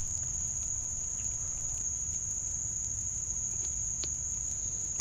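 Steady high-pitched insect chorus, one unbroken shrill tone, over a low rumble, with a single faint click about four seconds in.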